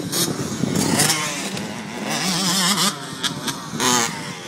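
Motocross bikes' engines revving, the pitch rising and falling as the riders open and close the throttle.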